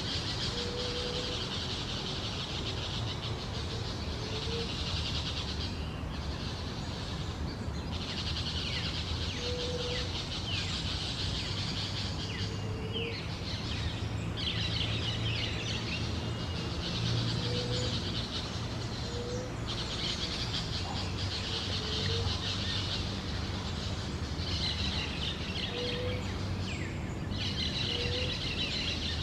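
Forest ambience: a high, dense buzzing chorus that comes in waves of a few seconds with short breaks between, over soft short low notes repeating every couple of seconds.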